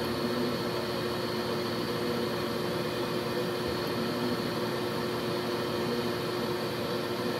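Aeon Mira 9 CO2 laser cutter running while it cuts, a steady mechanical whir with a constant hum.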